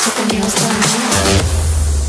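Background electronic dance music with a hard beat that drops out about one and a half seconds in, leaving a deep held bass tone.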